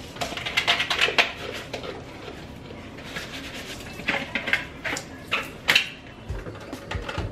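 Dishes clattering in a kitchen sink as plates and a bowl are washed by hand: clusters of clinks and knocks in the first second, then again about four and five and a half seconds in.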